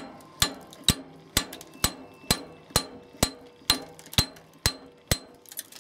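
Hammer blows on the steel anchor stud of a glass disc strain insulator clamped in a vise, driving the stud out of its cemented steel cap. About a dozen evenly spaced strikes, roughly two a second, each with a short metallic ring; the blows stop shortly before the end.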